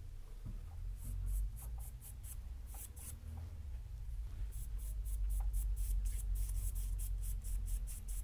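Paintbrush strokes brushing across a stretched canvas: short scratchy strokes, a few at first, then a quicker, closer run in the second half, over a low rumble.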